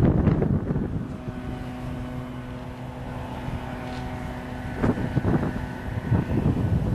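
Wind buffeting the microphone, then a steady engine drone with a clear pitched hum. The drone fades after about five seconds, when gusts of wind return.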